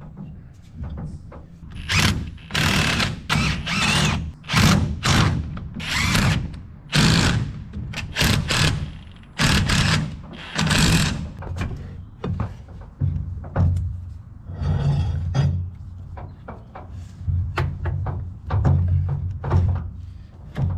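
Tool work on a tractor: a rapid run of loud metal knocks and scraping clanks for about ten seconds, then sparser knocks over a steady low hum.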